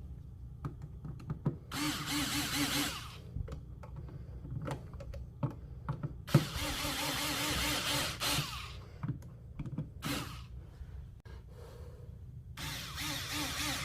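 A cordless drill-driver whirring in three short runs as it drives the screws that mount a GFCI outlet into its electrical box, with small clicks and taps of handling between the runs.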